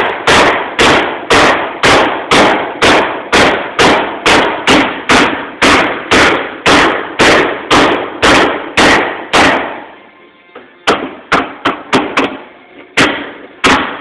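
Soft-faced hammer beating on the car's sheet-metal body panel, flattening crinkled, double-formed metal: a steady run of about two and a half blows a second that stops about nine seconds in, followed after a short pause by a few slower, uneven blows.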